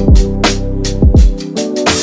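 Background music with a steady beat: deep drum hits and crisp percussion over held chords. The deep bass and drums drop out about one and a half seconds in.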